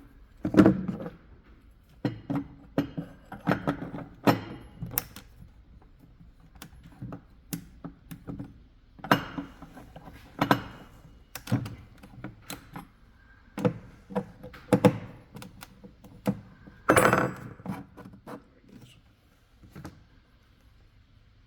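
Irregular knocks, clunks and clicks of a Stihl string trimmer's shaft and housing parts being handled and fitted together by hand, with the loudest knocks about half a second in and again near the 17-second mark.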